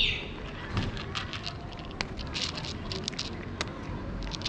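Cat eating from a plate close by, its chewing making a string of short, irregular crackling clicks.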